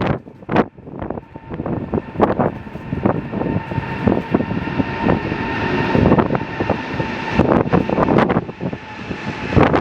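Jet airliner engines running with a steady whine, under heavy wind buffeting on the microphone.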